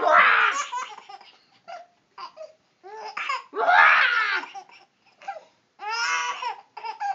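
Baby giggling and laughing in repeated bursts, with three loud bouts of laughter.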